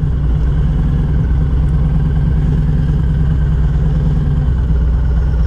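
Harley-Davidson Sport Glide's Milwaukee-Eight 107 V-twin engine running steadily, with no rise or fall in pitch.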